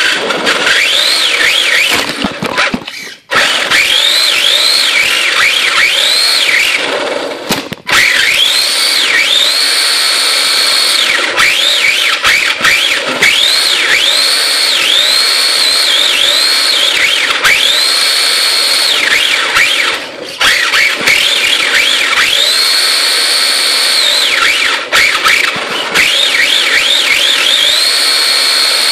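Electric motor and drivetrain of a Tamiya RC drift car, heard up close from on board: a high whine that climbs and levels off again and again with repeated bursts of throttle, cutting out briefly a few times.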